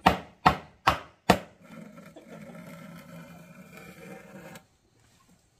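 Wooden mallet pounding a wooden plank box, four sharp blows about half a second apart, then a fainter steady sound for about three seconds that cuts off suddenly.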